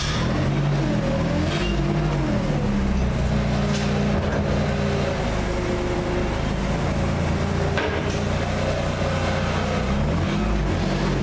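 Winery crush-pad machinery running steadily while a half-ton grape bin is tipped into the hopper on a lift, its motor pitch drifting slowly up and down. There is a single sharp knock about eight seconds in.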